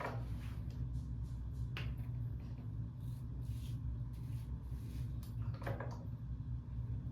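Steady low background hum with a few faint handling knocks and scrapes, about two seconds in and again near the end.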